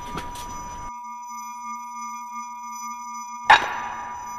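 Several steady electronic tones held on one pitch. A sudden hit comes about three and a half seconds in and fades out over about a second.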